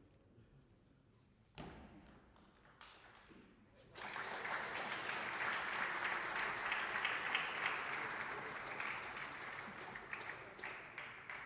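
A few sharp table tennis ball strikes in a short rally, then spectators clapping from about four seconds in, the applause fading near the end.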